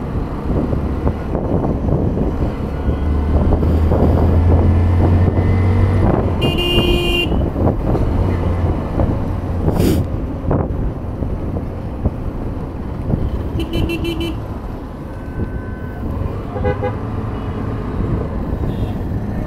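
Hero Hunk's single-cylinder engine running while riding in traffic, with wind rush on the microphone. Vehicle horns toot briefly about seven seconds in, again around fourteen seconds, and near the end. A sharp knock comes about ten seconds in.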